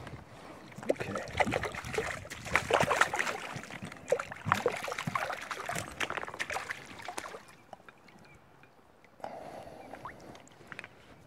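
Water splashing and sloshing around a landing net held in the river with a brown trout in it, a busy run of irregular splashes and drips that dies down after about seven seconds.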